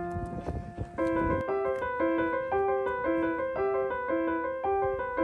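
Background piano music: a gentle melody of single sustained notes at an even pace, which breaks off briefly in the first second and resumes about a second in.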